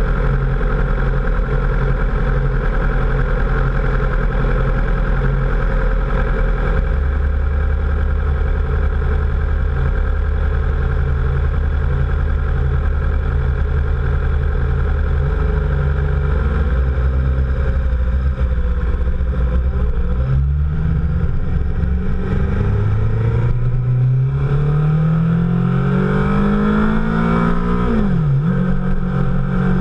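Motorcycle engine idling steadily, then accelerating away. The revs climb in rising sweeps about two-thirds of the way through, drop sharply at a gear change near the end, and then hold steady.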